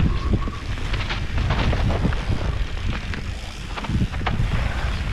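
Mountain bike descending a dirt singletrack: wind rushing over the helmet camera's microphone and tyres rolling on the dirt, with frequent short knocks and rattles from the bike over bumps.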